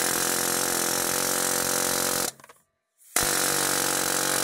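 Pneumatic air hammer (Ingersoll Rand) rattling rapidly as it chisels at a rust-seized front CV axle in its hub bearing, worked while hot after heating. It stops briefly about two seconds in, then starts again.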